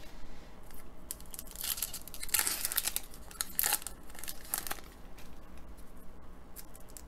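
An Upper Deck hockey card pack's foil wrapper being torn open and crinkled by hand, in bursts of rustling that are loudest in the middle and thin out near the end.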